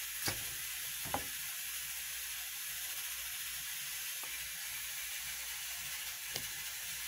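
Knife tip prying coconut meat away from its wetted shell: a few faint clicks and scrapes, over a steady hiss.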